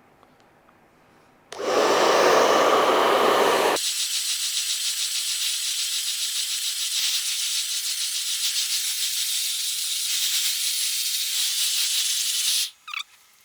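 Hairdryer blowing hot air onto a faulty monitor's screen. It comes on about a second and a half in, with a full, even rush of air. After about four seconds the deeper part drops away, leaving a higher hiss with a fast flutter, which cuts off near the end.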